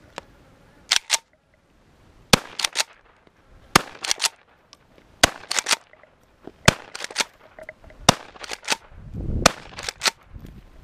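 Remington 7615 pump-action .223 rifle firing about seven rapid shots, roughly one every second and a half, with the clack of the pump being worked between each shot.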